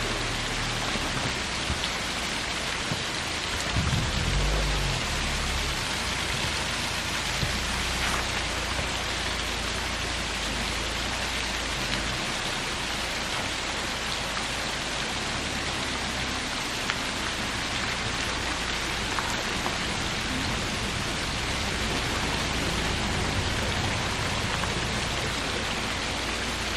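Small waterfall: a steady, even rush of water splashing over rocks, with a brief low rumble about four seconds in.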